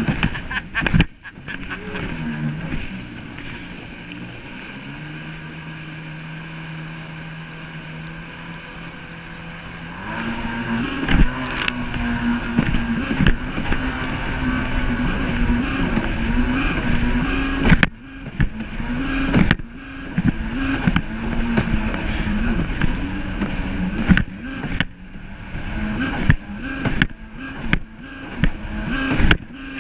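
Kawasaki jet ski engine easing off with a falling pitch about two seconds in and running slower and quieter for several seconds. About ten seconds in it is throttled up and runs fast, its pitch wavering with the throttle. Repeated knocks and brief drops in level come as the hull hits the chop.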